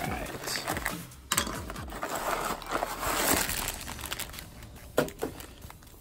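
Plastic bags of LEGO pieces crinkling and rustling as they are handled and pulled from the cardboard box, with a few small clicks and knocks.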